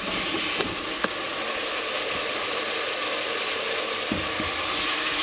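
Onions and ginger-garlic paste sizzling in hot oil in an aluminium pressure cooker, a steady hiss with a few light clicks of a metal slotted spoon against the pot.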